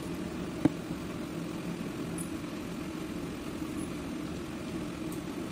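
A steady low mechanical hum, like a small motor running, with one sharp click a little under a second in.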